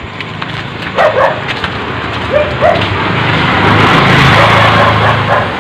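A motorcycle passes close by, its engine growing louder to a peak about four seconds in and easing off near the end. Earlier, a dog barks twice.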